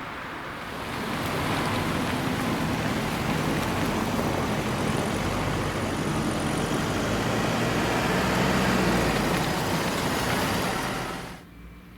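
Road vehicle noise, rising about a second in, holding steady for about ten seconds, then cutting off suddenly near the end.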